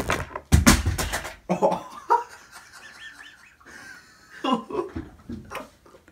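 A sharp knock and a run of clattering knocks, as of the camera and objects close to the microphone being bumped, followed by a person laughing.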